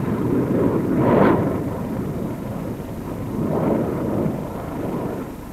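Rushing, rumbling noise of an X-15 rocket plane sliding to a stop on its skids across a dry lakebed, with wind buffeting the microphone. The noise swells about a second in and again around three and a half seconds.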